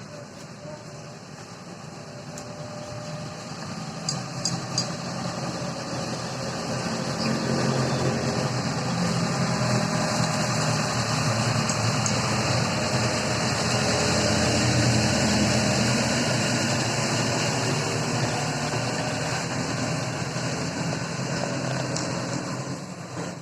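Backhoe loader's diesel engine running steadily, growing louder over the first several seconds, holding, then easing off near the end. A few short sharp clicks sound in the first five seconds.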